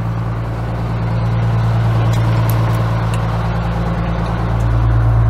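1982 American LaFrance fire engine idling: a steady low engine hum that grows a little louder toward the end.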